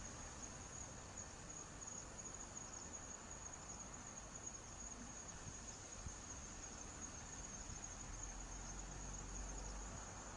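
Crickets chirring in a steady, continuous high trill, over a faint low rumble of background noise.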